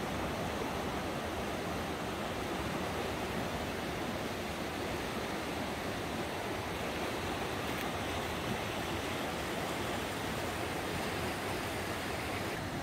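River rapids: fast white water rushing steadily over rocks.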